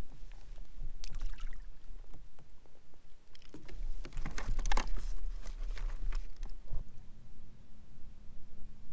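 Water splashing and sloshing against a kayak's side, with scattered clicks and knocks of handling, as a northern pike is let go back into the water. A low wind rumble runs underneath, and a steady low hum starts about seven seconds in.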